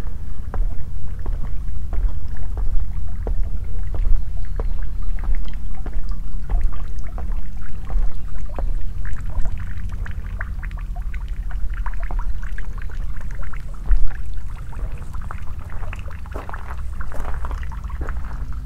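Footsteps of someone walking, a steady run of short scuffs and crunches that grow denser near the end, over a loud, gusting low rumble of wind on the microphone.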